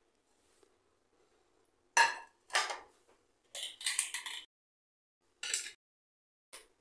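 Steel mixer-grinder jar and its plastic lid being handled and set in place: a run of short knocks and clatters, five in all, with quiet between them.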